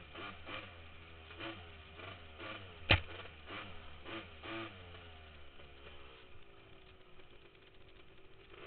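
Honda TRX250R's two-stroke single-cylinder engine revving up and down as the quad rides over a bumpy dirt trail, heard from a helmet camera. A single sharp knock about three seconds in.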